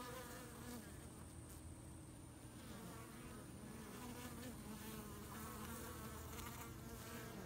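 Honey bees buzzing around a hive entrance: a faint, steady hum.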